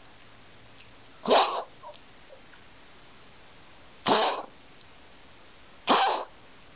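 A pet coughing in three harsh, short coughs spaced about two seconds apart.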